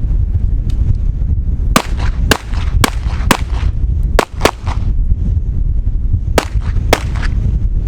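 Pistol shots fired in a fast string about half a second apart, then a pause of about two seconds and two more shots. Wind rumbles on the microphone throughout.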